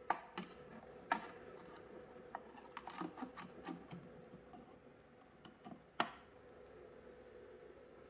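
Faint, scattered clicks and light taps, like small objects being handled on a table, over a faint steady hum.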